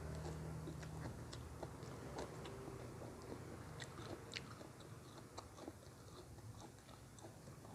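A person chewing food close to the microphone, with many small scattered crunches and mouth clicks.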